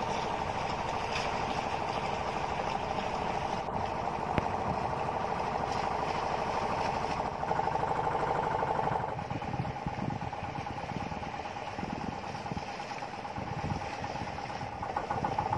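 Outrigger fishing boat's engine running steadily with a fast, even beat, easing slightly about nine seconds in.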